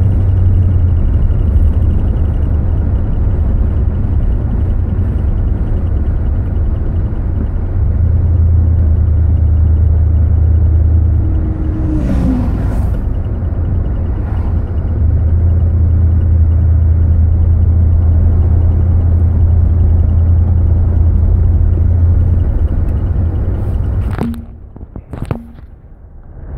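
Car engine and road noise droning steadily inside the cabin while driving, easing off for a few seconds around the middle and then picking up again. About two seconds before the end the drone drops away suddenly, with a couple of sharp clicks.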